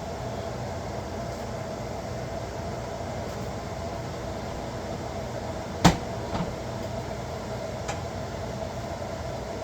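Electric fan running steadily with a constant hum, turned on to clear cooking smoke. About six seconds in there is a sharp clack, then a lighter one, and a faint tick a couple of seconds later.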